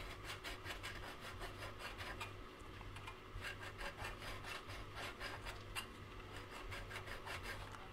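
Small flat file rubbing in quick, light strokes across the tops of soldered copper-clad ties and rails, taking off the high spots. The strokes are faint and come in a steady run.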